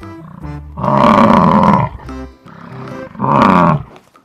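Bison bellowing twice: a long, deep roaring call about a second in and a shorter one near the end, over background music.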